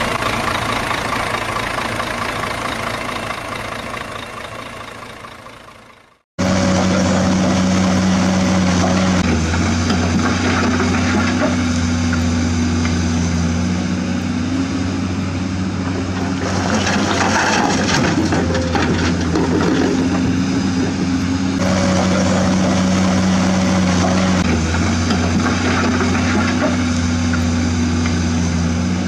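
An engine sound fades out over the first six seconds to a brief silence. Then a low, steady engine idle starts, its pitch stepping up and down a few times.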